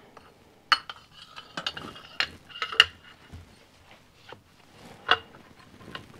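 Damper rod sliding down inside a Triumph 675 upside-down fork leg and being seated in the bottom of the leg: irregular metallic clinks and short scraping rattles, some with a brief ring, the loudest nearly three seconds in and again at about five seconds.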